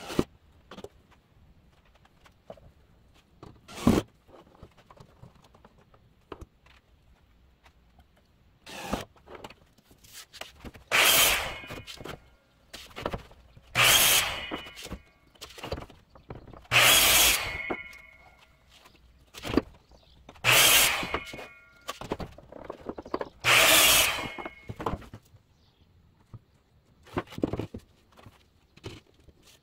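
A miter saw making five crosscuts through wooden boards, about three seconds apart. Each cut is a short loud burst of about a second with a brief ringing tone trailing it. A couple of sharp knocks come before the cuts, and a few lighter knocks come near the end.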